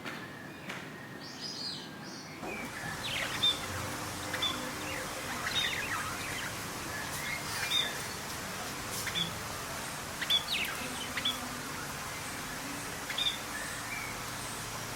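Songbirds chirping and calling, short high notes and brief trills every second or so over a steady background hiss. The background noise grows louder about two seconds in.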